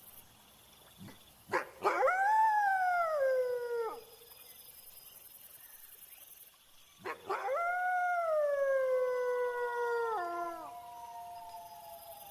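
A wolf howling twice: a howl that rises and then slides down, then a longer one that falls in steps and trails off, over faint steady cricket chirring.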